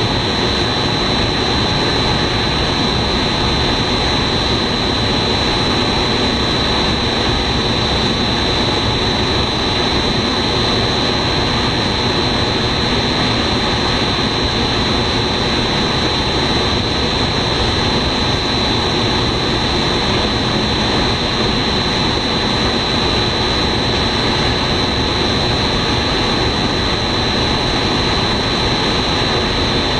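A row of 3D snack extruders running, giving a steady machine noise with a constant high-pitched whine.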